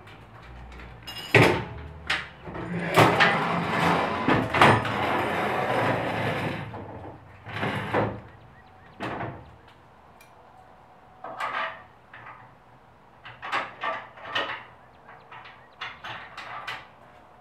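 Welded-steel folding utility trailer being folded and tipped up on end: loud metal clanks and thumps, with a few seconds of continuous rattling and scraping early on, then scattered lighter knocks as it is settled upright.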